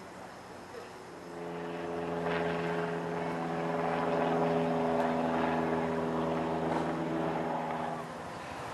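Locomotive air horn of an approaching train, sounding one long, steady chord of several notes that starts about a second in and stops near the end.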